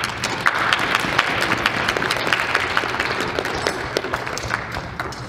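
Applause from a small seated audience: a dense patter of hand claps that thins out near the end.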